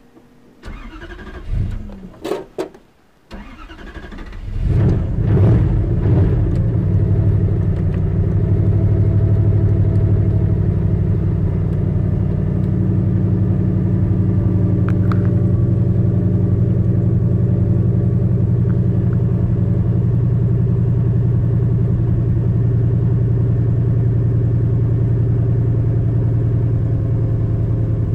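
Turbocharged 1UZ V8 in a Lexus LS400 being started. After a few clicks and a short crank, it catches about four to five seconds in, flares briefly, then settles into a steady idle.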